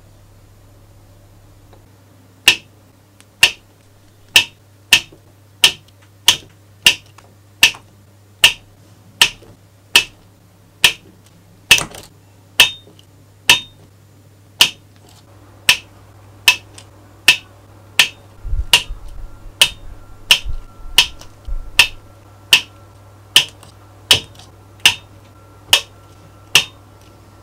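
A long series of sharp clicks, about one or two a second, while small screws are driven into the metal cylinder head of a model V8 engine with a mini electric screwdriver. A low rumble runs under the clicks for a few seconds past the middle.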